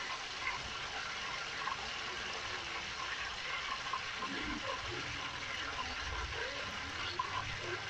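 Pork leg deep-frying in hot oil in a pot: a steady sizzle with small crackles, during the second fry that crisps the skin.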